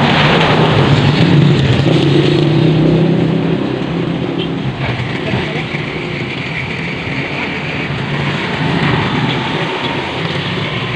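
A motor vehicle engine running close by, loudest in the first few seconds and then fading, over a steady rushing noise.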